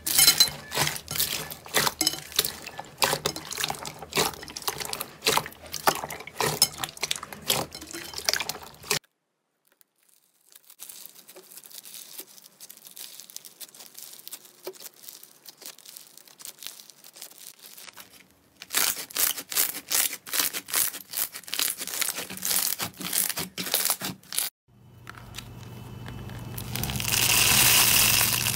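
Hands pressing and squeezing slime. Dense crackling and popping from slime packed with foam beads, then after a brief silence a softer crackle as a white fluffy slime is stretched, and more crackling pops. Near the end a rising wet squishing hiss as an orange bead-filled slime is squeezed.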